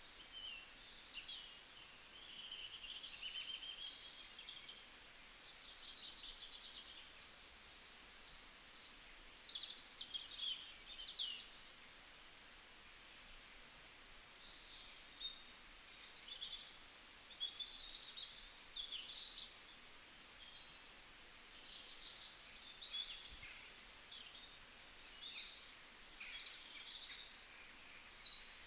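Several wild birds chirping and whistling, many short overlapping calls, busiest about a third of the way in and again past the middle, over a faint steady hiss.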